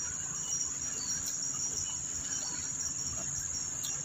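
Insects shrilling: a steady, high-pitched buzz, with a low steady rumble underneath.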